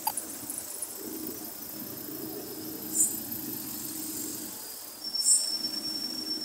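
Street traffic, with car and van engines running in slow, congested traffic. Two short high-pitched chirps about three and five seconds in stand out above the hum, and a thin, steady high tone sounds over the last second or so.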